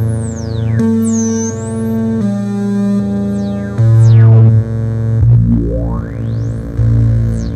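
Moog analog synthesizers, a Werkstatt and Mother-32s, playing a sequenced bass line of held notes that change about once a second. High whistling pitch sweeps glide down, dip and rise over the top, with a long rising sweep in the second half.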